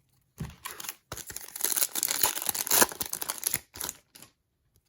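A foil trading-card pack wrapper being torn open and crinkled: a dense crackle lasting about three and a half seconds, loudest in the middle, with a few light clicks of handled cards around it.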